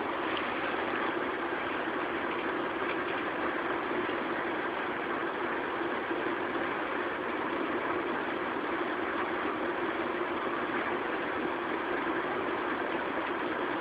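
Cat purring steadily and continuously, close to the microphone.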